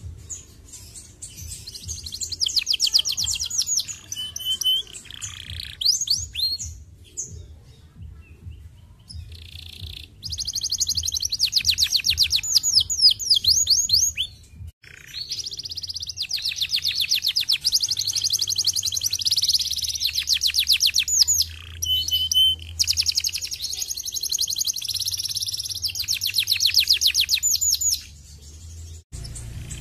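Canary singing: long, high-pitched rapid trills strung into phrases several seconds long, with a quieter stretch about a third of the way in and a brief pause near the middle.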